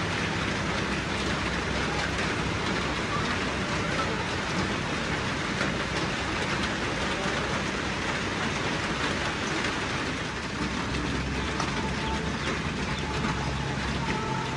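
Rain falling steadily, an even dense hiss with no break.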